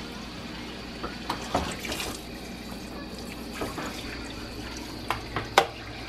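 Water running from a kitchen sink's pull-out sprayer hose over a dog being bathed in the sink, with a few short sharp clicks, the sharpest near the end.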